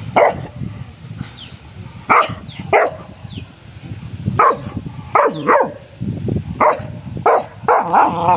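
Young Rottweiler barking about a dozen times in short, sharp barks at irregular intervals.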